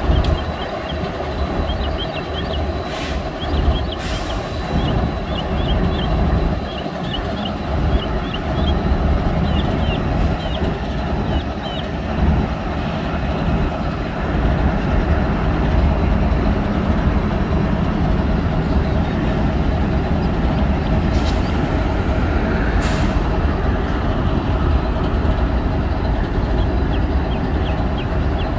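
Freight train rolling past with a steady low rumble, light high squeaks from the wheels, and a few short sharp noises from the cars.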